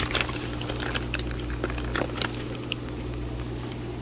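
Plastic fish bags and the box's plastic liner crinkling and rustling as water-filled bags are handled, in scattered crackles that are densest at the start and about two seconds in. A steady low hum runs underneath.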